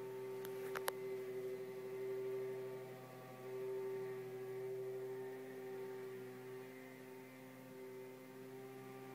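Steady electrical hum with several fixed tones, swelling and fading a little, with a few sharp clicks just under a second in.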